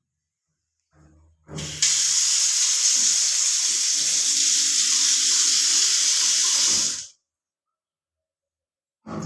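Water spraying hard from shower body jets, a loud, even hiss that starts about one and a half seconds in and cuts off suddenly about seven seconds in.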